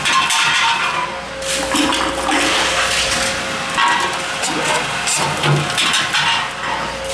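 Tomra T-53 reverse vending machine taking in a returned can: its motor-driven mechanism runs with a steady hum while the can rattles and clatters through it, with short knocks along the way.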